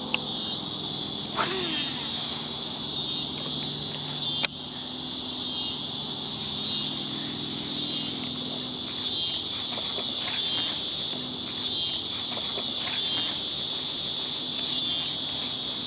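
Chorus of insects buzzing high and continuously, swelling and fading in regular pulses a little over a second apart. A single sharp click sounds about four seconds in.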